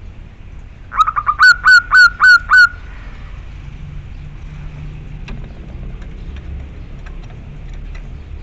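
Male zebra dove (perkutut) calling to a female: a quick run of short notes, then five loud, clear, hooked coos in a steady rhythm, about two seconds in all.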